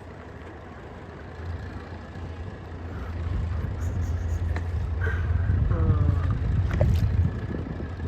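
Watercraft engine running on the water, its low drone growing steadily louder over several seconds before easing off near the end, with wind and water noise. A short falling pitched sound comes about five seconds in.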